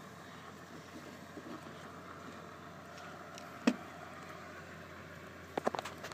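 Wooden rabbit box being handled and opened: one sharp knock a little past halfway, then a quick run of knocks and clicks near the end, over faint steady outdoor noise.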